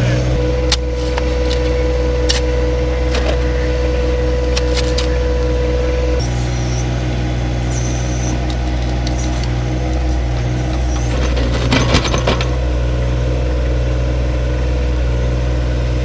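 John Deere 1025R compact tractor's three-cylinder diesel running steadily under backhoe work, with a steady whine over it for about the first six seconds. Scattered clinks and scrapes of digging in gravel, with a short cluster of them about twelve seconds in.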